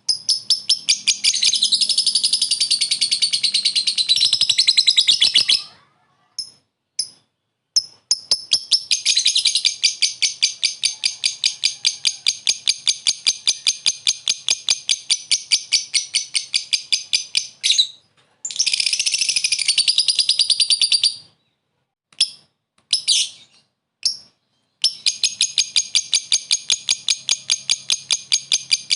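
A lovebird's 'ngekek': long runs of rapid, shrill chattering notes, about six or seven a second, in stretches of several seconds (the longest about ten seconds) broken by brief pauses and a few short bursts. This is the rival-calling chatter that keepers play to provoke other lovebirds into singing.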